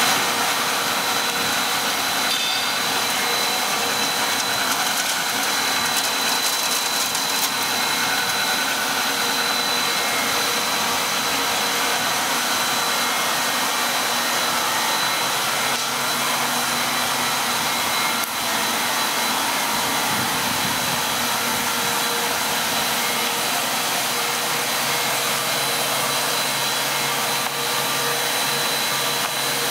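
A two-stage plastic recycling extruder line running: a steady, even machine noise with a constant high whine over it.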